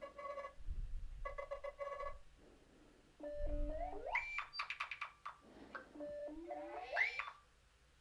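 Nothing Phone 2 ringtones previewed one after another. First a short buzzy electronic tone pulsed twice, then a different synthetic ringtone of rising glides and rapid ticking blips, played twice.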